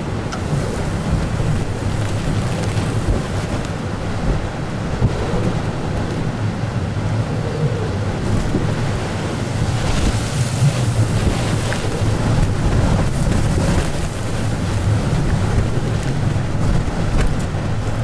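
Blizzard wind gusting against the microphone: a heavy, uneven rumble with a hiss above it. The gusts pick up about ten seconds in.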